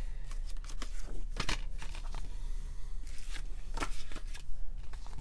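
A Blu-ray steelbook case being handled and closed: scattered clicks and knocks, the sharpest about a second and a half in and near four seconds, with light rustling between them.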